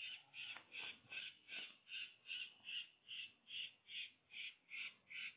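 Faint, harsh, crow-like calls repeated at an even pace, about two and a half a second, from an electronic predator caller playing a distress sound to draw in coyotes.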